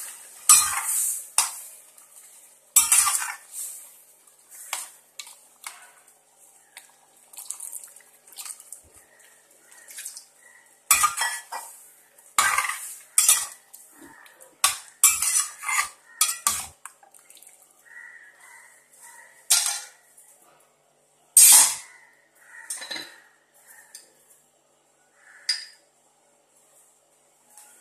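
Metal spoon stirring a thin lentil-and-vegetable sambar in a stainless steel pot, clinking and scraping against the pot's sides and bottom in irregular strokes with short pauses between them.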